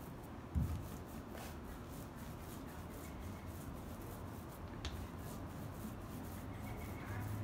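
Small paint roller rolling primer over a fiberglass boat hull: a soft, steady rubbing. A low thump comes about half a second in, and a faint click near five seconds.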